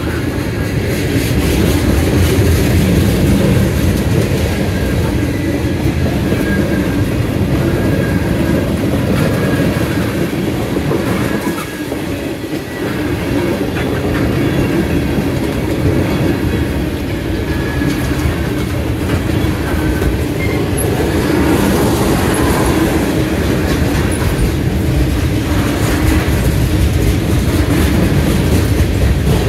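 CSX freight train's cars, mostly tank cars, rolling past close by: a steady rumble with wheels clacking over the rail joints and a faint thin squeal at times. It drops briefly quieter about twelve seconds in.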